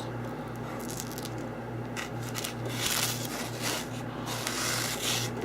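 Protective plastic film being peeled off a new lightbox: a crackling, tearing rustle that swells about three seconds in and again near the end.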